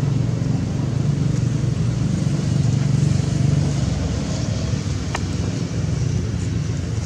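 Steady low rumble, with one short sharp sound about five seconds in.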